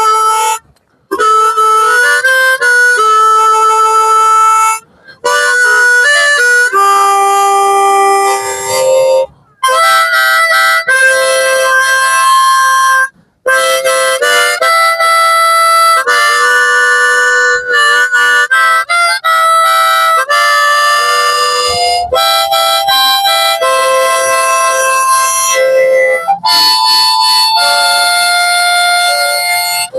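Harmonica playing a melody solo, with held notes and double-stops, in phrases separated by brief pauses.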